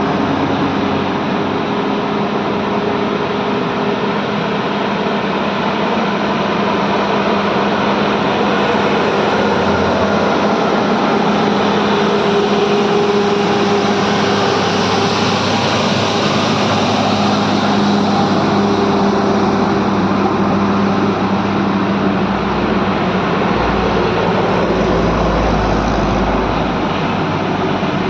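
Heavy truck engine running steadily under a loud, even rush of road noise, its drone shifting slowly in pitch, with a deeper rumble near the end.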